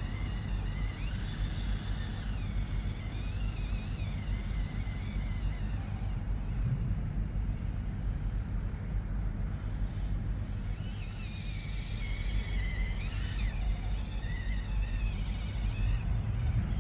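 Absima 1:18 scale mini crawler's small electric motor and gears whining, the pitch rising and falling with the throttle in two spells, over a steady low rumble.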